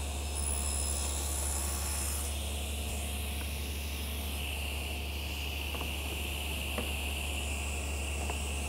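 Table saw running steadily, its blade crosscutting the tenon shoulders on a pine rail carried on a panel-cutter sled. The motor hum stays even, with a few light ticks in the second half.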